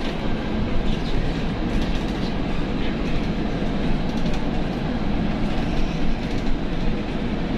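Steady rumble and road noise of a moving bus, heard from inside the passenger cabin, with a few faint rattles.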